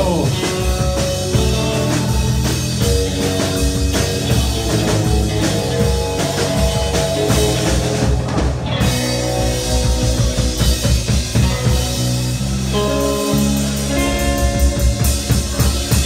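Live rock band playing loudly: drum kit and electric guitars.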